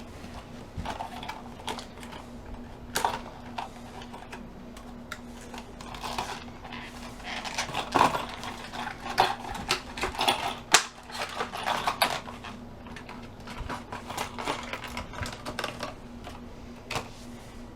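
Small metal and plastic parts being handled: a run of irregular clicks, taps and light rattles, busiest in the middle, over a faint steady hum. The parts are a replacement toolbox lock cylinder and the toolbox lid it is being fitted to.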